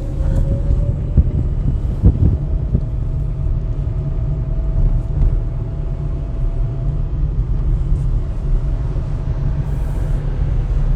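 Car on the move, heard from inside the cabin: a steady low rumble of engine and tyre noise, with a couple of light knocks from bumps about two seconds in.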